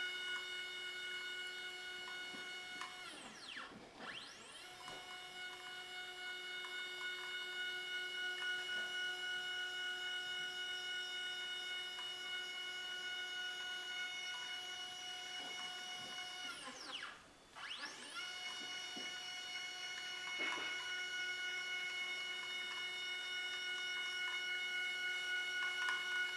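Stepper motor driving the 3018 CNC's rebuilt Y axis back and forth, a steady high-pitched whine that glides up in pitch as each move starts and down as it stops. Three moves with short pauses about 4 and 17 seconds in; the axis is running smoothly.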